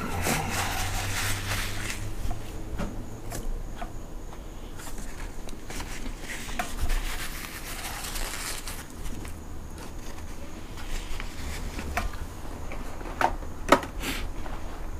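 Paper napkin rustling and rubbing as a man wipes his mouth and face, in long hissy stretches. A couple of sharp taps come near the end.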